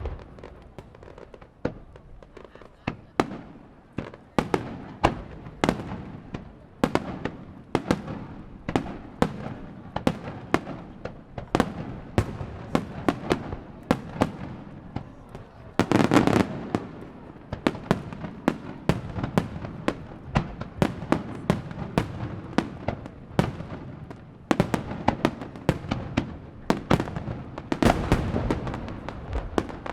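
Aerial fireworks shells bursting in quick, overlapping succession: many sharp booms a second, each trailing off briefly. There is a denser flurry of bursts just past the middle.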